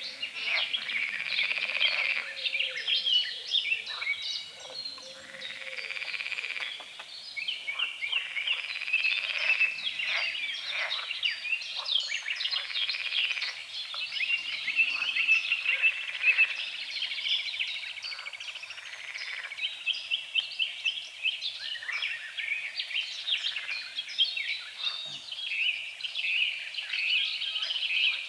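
A chorus of frogs croaking in rapid pulsed trains that overlap and never stop, with birds singing among them.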